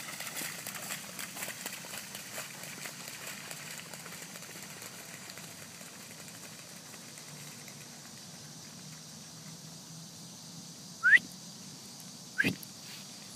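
A Rhodesian Ridgeback splashing as it runs through a large, shallow puddle; the splashing fades over the first few seconds as the dog moves away. Near the end, two short, sharp rising chirps are the loudest sounds, the second with a low thump.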